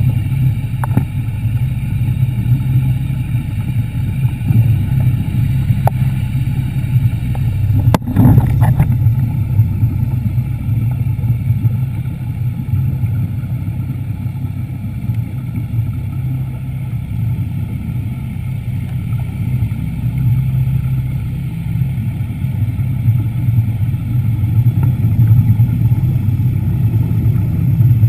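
Underwater scooter's motor running steadily underwater: a constant low drone with a faint steady high whine above it. A single sharp click about eight seconds in.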